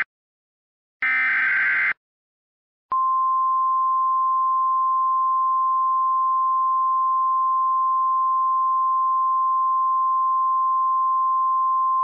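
Emergency Alert System signal: the last of the header's raspy data bursts, about a second long, then after a short gap the attention tone begins about three seconds in, one loud steady beep.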